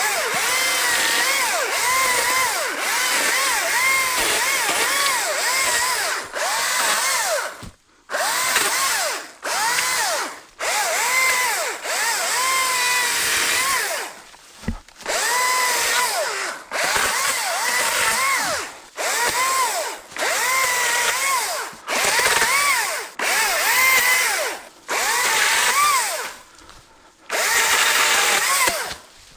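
ECHO DCS-2500T battery top-handle chainsaw cutting in a run of short bursts, its motor pitch dipping and recovering as each cut loads and frees the chain. There are brief pauses between bursts, and longer ones about eight, fourteen and twenty-seven seconds in.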